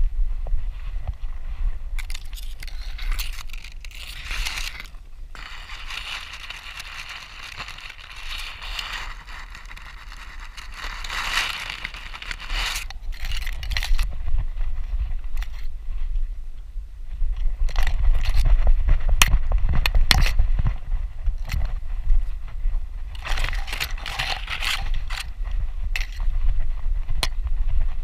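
Tall grass brushing and scraping against a GoPro worn on a dog's harness as the dog moves through a meadow, over a steady low rumble of knocking from the dog's movement. The rustling swells in two long stretches, one starting about two seconds in and one near the end.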